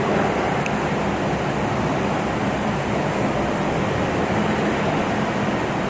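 Robotic TIG welding arc burning steadily: an even hiss with a low hum underneath.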